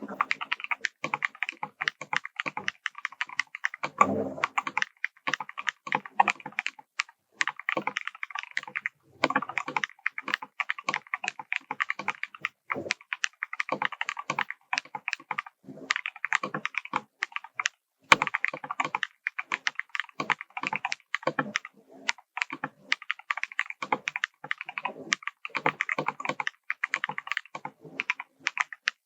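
Typing on a Novelkeys Classic TKL mechanical keyboard fitted with lubed KTT Hyacinth v1 linear switches and Drop MT3 Cyber keycaps: rapid, continuous keystroke clacks in runs with short pauses. There is one deeper thud about four seconds in.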